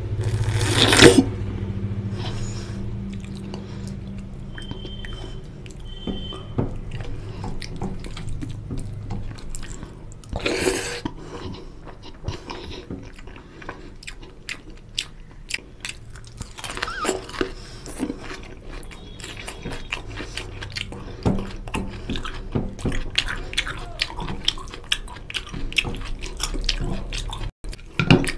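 Close-miked wet chewing and mouth sounds of a person eating mutton curry and rice with his hand: many small smacks and clicks, with a loud slurp about a second in as he sucks curry off his fingers and another near ten seconds. Crisp crunching of raw onion follows.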